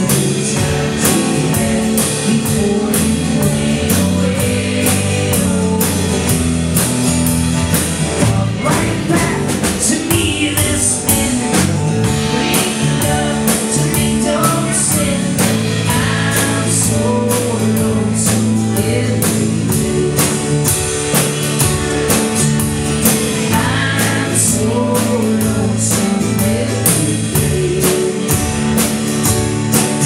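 Live pop-rock band playing a song: a male lead voice sung over strummed acoustic guitars, an electric guitar and a drum kit keeping a steady beat.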